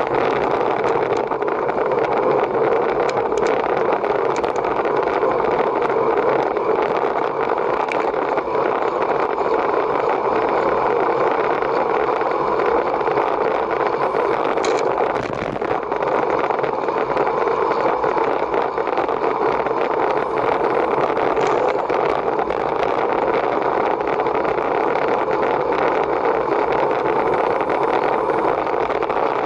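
Steady rushing wind and road noise from a bicycle riding at race speed, with a few faint ticks.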